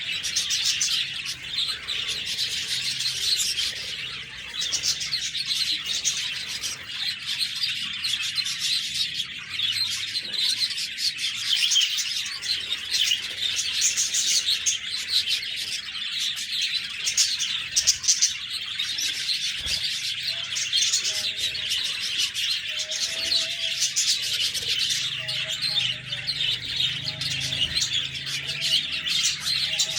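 Several budgerigars chirping and warbling, many overlapping quick chirps with no pauses.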